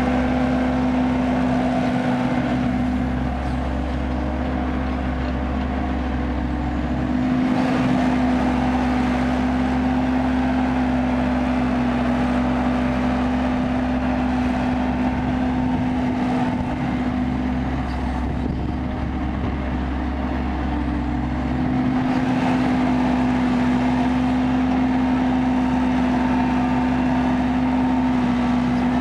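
Kobelco excavator's diesel engine running steadily under working load, with the low rumble shifting every several seconds as it digs and swings.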